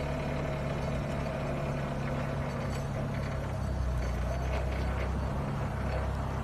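Propane-fuelled Yale forklift's engine running steadily as the forklift drives slowly, with a deeper note coming in a little past halfway.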